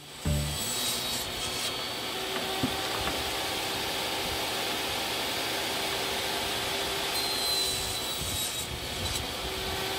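Portable table saw running steadily with its blade cutting a pine board, a constant motor whine under the sawing noise.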